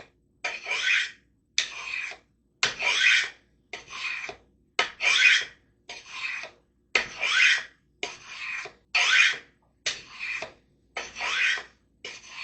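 Knife edge stroked down the fine ceramic rods of a Spyderco triangular sharpener, about one scrape a second, some strokes sliding up in pitch, honing out the catch left in the edge.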